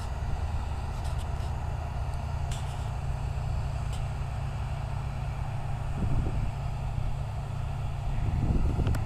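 Heavy diesel harvest machinery running steadily with a low drone and a few faint clicks. The drone swells briefly about six seconds in and again near the end.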